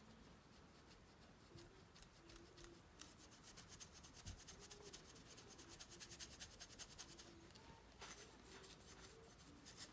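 Faint, rapid rubbing of a polishing cloth on a sonic screwdriver replica prop, quick scratchy strokes that grow busier from about three seconds in.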